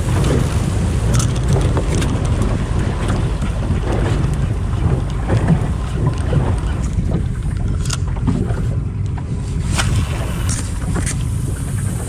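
Steady wind rumble on the microphone and water sloshing against the hull of a small fishing boat on open sea, with a few scattered sharp clicks and knocks from handling.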